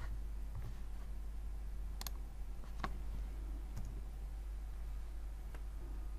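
A handful of sharp computer mouse and keyboard clicks, spaced irregularly, as a command is copied, pasted into a terminal and run. A low steady hum sits underneath.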